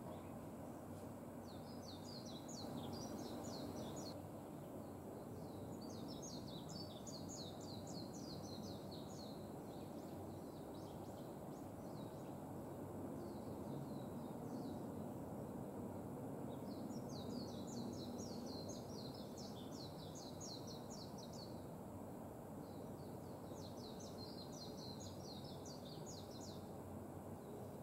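Japanese white-eye singing: four bouts of rapid, high twittering warble, each a few seconds long with pauses between, over a steady low background rumble.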